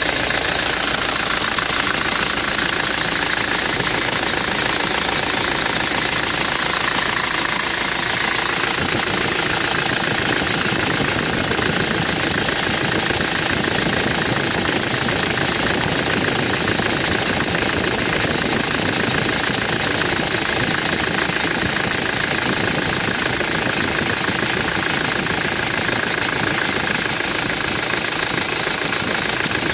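Nissan Navara D22 pickup engine running steadily at idle. The deepest part of the rumble drops away about eight seconds in.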